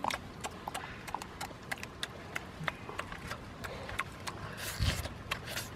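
Close-up mouth sounds of someone chewing roast chicken: a run of irregular smacking clicks, several a second.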